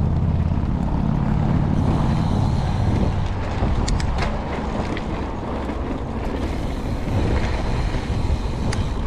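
Wind buffeting a mountain bike's GoPro microphone over the noise of tyres rolling on a dirt trail. The heavy low rumble eases about three seconds in, and a few sharp clicks and rattles come around four seconds in and again near the end.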